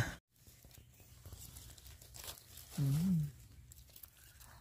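Faint rustling and scraping in dry leaf litter as a freshly dug bolete mushroom's stem is scraped clean with a small knife. A person hums a short rising-and-falling "mm" about three seconds in.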